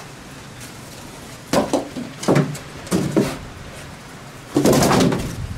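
Cardboard packing and paperwork being handled: a few short scuffs and knocks, then a longer, louder scrape of cardboard about four and a half seconds in.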